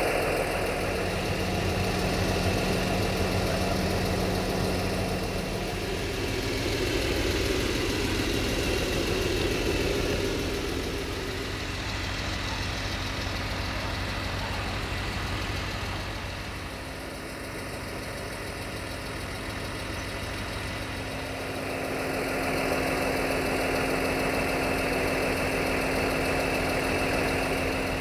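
Diesel train engine idling steadily at a standstill, a continuous low hum that eases slightly in loudness midway and picks up again.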